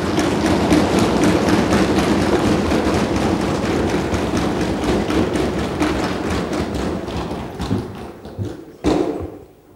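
Legislative assembly members thumping their wooden desks and clapping in welcome: a loud, dense patter of many rapid knocks that tails off near the end, with one louder knock about nine seconds in.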